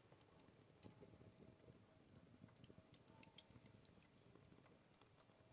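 Near silence, broken by faint, irregular small clicks and crackles from the fireplace grill, with its wood fire and turning skewers.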